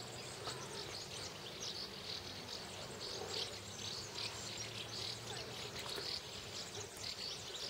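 Faint rural outdoor background: many quick, irregular high-pitched chirps over a low steady hum.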